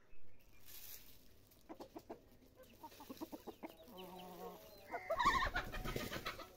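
Domestic chickens clucking as grain is scattered for them. Light ticking of grain landing on the dirt comes first, then a short call, and the loudest clucking calls come near the end.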